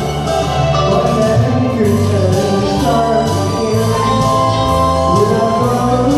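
A man singing into a microphone over an amplified karaoke backing track with a steady beat.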